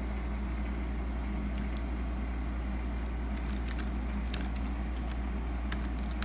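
Steady low hum with a few sharp, scattered keyboard clicks from about three and a half seconds in, as a password is typed at the Windows sign-in screen.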